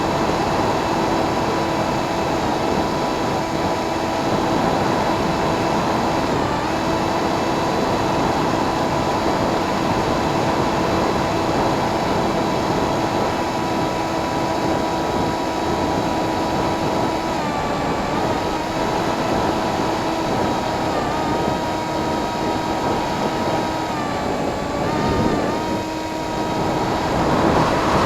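Motor and propeller of a Firstar radio-control FPV plane, heard from on board as a steady whine over heavy wind noise. The whine shifts pitch several times in the second half as the throttle changes.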